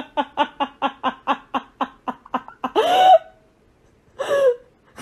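A person giggling in a fast run of short 'ha' pulses, about six a second, breaking off into a longer rising squeal, then one short falling cry near the end.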